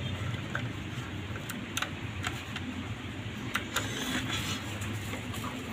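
Light clicks and taps of the plastic dome-light housing being handled, over a steady low drone.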